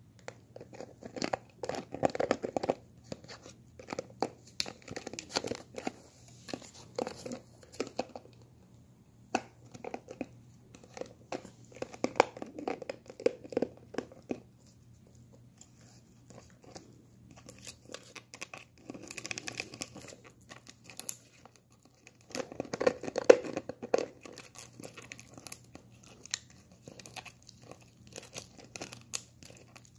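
A small dog gnawing and biting at the cap and neck of a plastic protein-shake bottle: teeth clicking, scraping and crinkling on the plastic in irregular flurries with short pauses, loudest about three-quarters of the way through.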